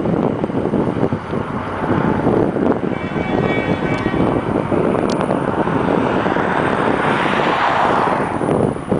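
Diesel locomotive ploughing at speed through deep snow drifts: a loud, dense rush of engine noise and flung snow, swelling louder near the end as the spray bursts close.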